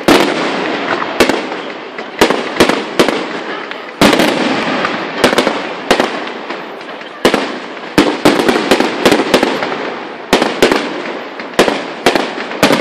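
Aerial firework shells bursting in quick succession: sharp bangs roughly every second, some in quick pairs, each trailing off in a fading rush of noise before the next.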